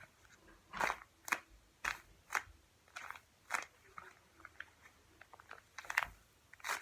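Handmade paper squishy of taped paper being squeezed and handled, giving a string of irregular paper-and-tape crinkles and crunches.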